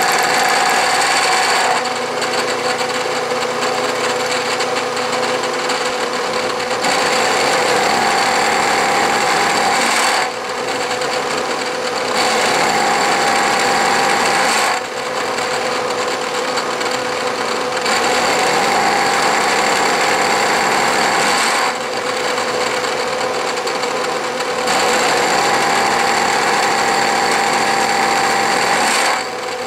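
Three-insert 1¾-inch milling cutter head face-milling an angle on a steel vise jaw: a loud, steady cutting noise with a ringing whine. Its tone shifts every few seconds, with brief dips about a third and a half of the way through and again near the end.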